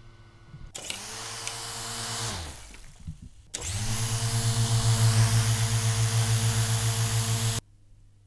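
Small electric motors of an S107H coaxial toy RC helicopter, run from a 6 V supply, spin its rotors with a steady whirring hum and a pulsing beat. The sound winds down with falling pitch about two seconds in. It then starts up again louder and cuts off suddenly near the end.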